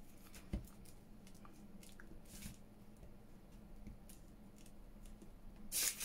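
Paper being handled on a craft card board: a soft tap about half a second in, then a few brief papery rustles, the loudest near the end.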